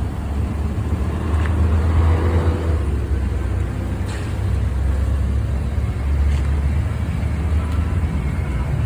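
Street traffic noise: a steady low vehicle rumble that swells briefly about two seconds in.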